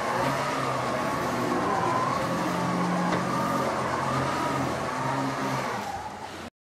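Electric motors of an animatronic triceratops ride car whining, the pitch slowly rising and falling over a steady low hum. The sound cuts off abruptly near the end.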